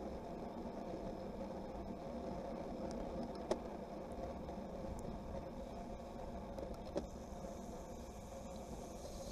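Steady wind and road noise on an onboard camera riding in a bunch of road racing bikes at about 50 km/h. Two sharp clicks cut through it, about three and a half seconds in and again about seven seconds in.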